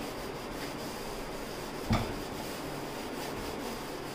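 Scrub pad rubbing steadily over a stainless steel stovetop, with a single knock about two seconds in.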